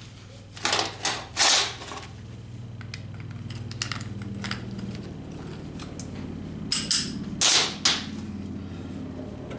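Short bursts of tack welding from a wire-feed (MIG) welder: three quick crackling bursts about a second in and three more near the end, over a steady low hum.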